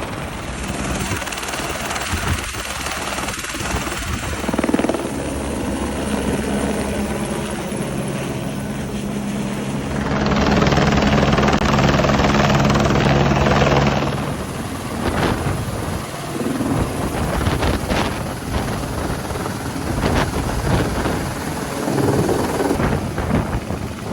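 Helicopter flying close by, its rotor and engine running steadily, louder for a few seconds about ten seconds in.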